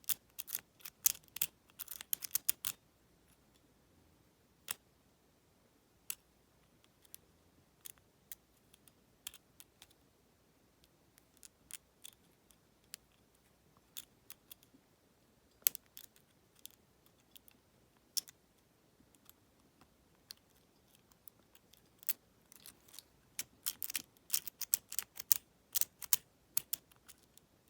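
Lock pick working the pin stack inside a Federal PL90PE lockout padlock under light tension: quick runs of sharp metallic clicks for the first couple of seconds and again near the end, with scattered single clicks between.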